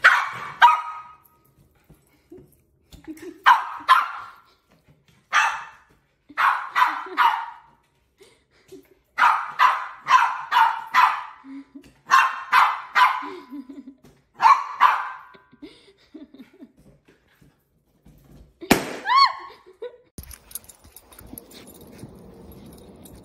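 Small dog barking in short runs of two to four sharp barks, with pauses of a second or two between the runs, over the first 15 seconds. A single yelp-like sweep in pitch follows. Near the end only a faint steady rushing noise remains.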